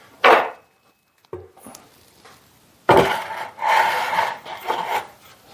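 Metal shop parts handled on a workbench: a sharp clink, then about two seconds of scraping and rattling as pieces are moved about.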